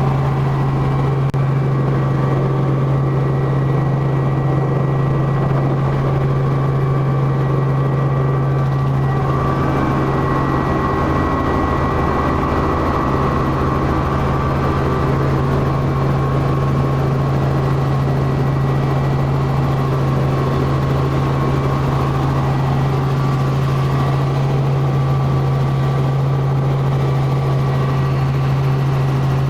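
Helicopter in flight: a steady, unchanging engine and rotor drone with a constant low hum and a faint steady whine above it.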